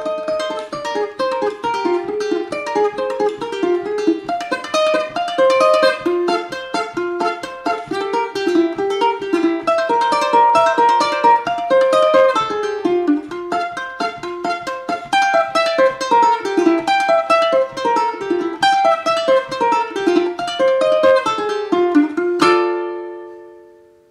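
Solo ukulele playing a fast instrumental tune, a quick, continuous run of plucked notes. Near the end it stops on a chord that rings and fades away.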